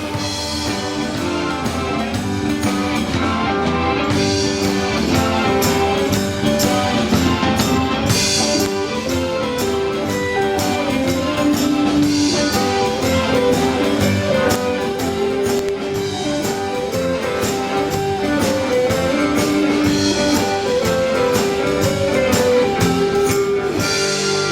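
Music with a steady beat, with guitar and drums.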